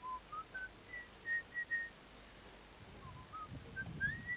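A person whistling a short tune in clear single notes. Each phrase climbs from a low note to a higher held note, and the phrase comes twice.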